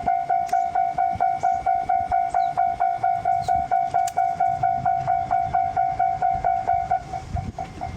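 Japanese level crossing alarm sounding its repeated electronic "kan-kan" bell tone, a little over three strikes a second. About seven seconds in it drops to a noticeably quieter level and keeps ringing.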